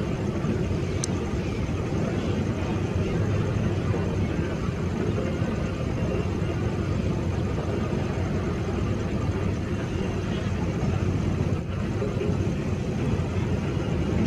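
Steady low rumble of a distant Airbus A320's jet engines at taxi power as the airliner rolls onto the runway.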